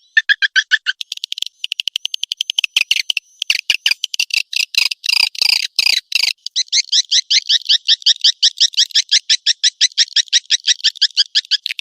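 Swiftlet lure call playing: rapid trains of high, dry chirps, about ten a second, with a run of louder sweeping calls in the middle and a long even trill near the end. It is the kind of swiftlet call played at a swiftlet house's entrance to draw the birds in to roost and nest.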